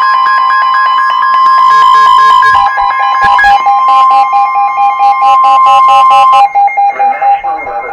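Weather radio sounding an Emergency Alert System alert for a severe thunderstorm warning: loud, steady electronic alarm tones, several at once with rapid pulsing, one shifting lower partway through. They cut out about six and a half seconds in, and a broadcast voice starts over a lingering steady tone.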